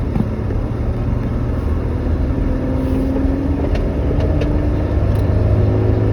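Road vehicle's engine and road rumble heard from inside the moving vehicle, the engine note rising gently through the middle as it accelerates.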